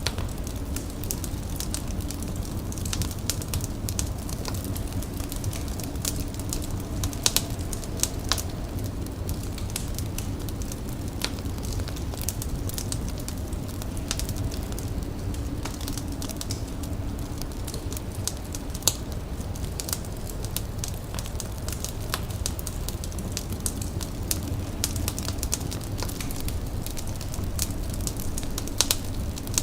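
An indoor fire crackling, with irregular sharp pops and snaps over a steady low rumble. A few louder pops stand out about a quarter of the way in, midway, and near the end.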